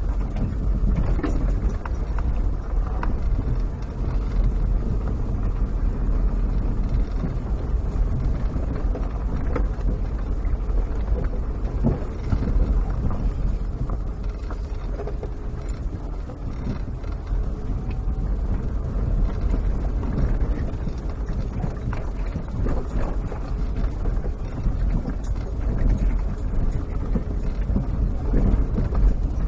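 Vehicle driving along a rough dirt bush track: a steady low engine and road rumble, with frequent knocks and rattles as the wheels go over bumps.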